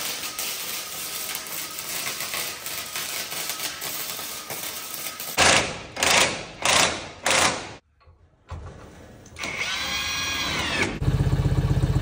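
Power drill driving lag screws into an overhead wooden truss: a steady run of the drill, then four short loud bursts about halfway through. Near the end a forklift engine is running with a steady low throb.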